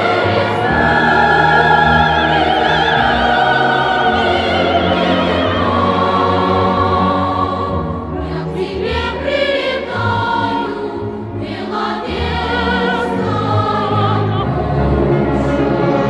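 Choral music: a choir singing long held notes with vibrato over low sustained accompaniment.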